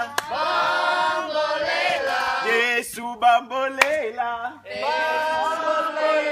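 A group of people singing together unaccompanied, men's voices prominent. Two sharp knocks cut through, one at the very start and one a little before the middle.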